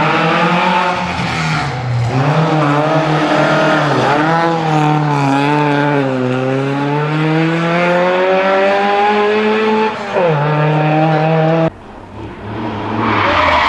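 Historic racing car's engine at high revs, its pitch falling and climbing several times and then climbing steadily over several seconds before dropping sharply. The sound cuts off abruptly near the end, and a different engine sound with a noisy hiss follows.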